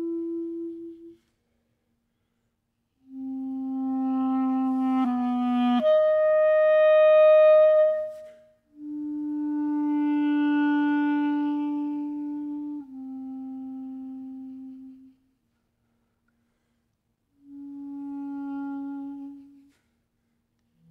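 Solo clarinet playing slow, long held notes, each swelling and fading, in short phrases separated by pauses of about two seconds of silence; the loudest, highest note comes about six seconds in.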